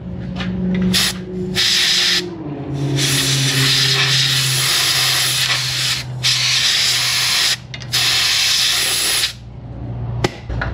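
Shop compressed-air blow gun blasting in several bursts of hissing air, the longest about three seconds, clearing rust and grime out of a ball joint housing.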